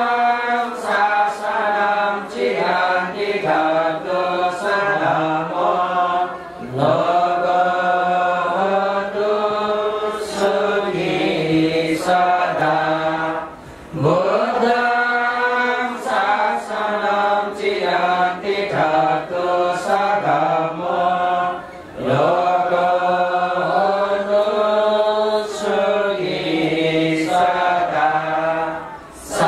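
A sung Buddhist chant: one melodic phrase repeated about every seven to eight seconds, with a short break between repetitions.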